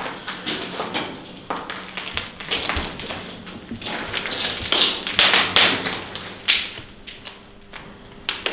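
Footsteps on a floor strewn with rubble and debris: a run of irregular taps and scuffs.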